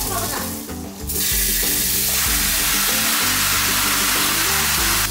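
Pork ribs and kimchi sizzling loudly as they are tipped from a frying pan into a hot cast-iron pot; the sizzle starts suddenly about a second in and holds steady. Background music plays underneath.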